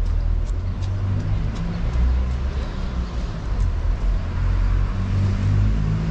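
City street traffic: a motor vehicle engine running with a steady low hum.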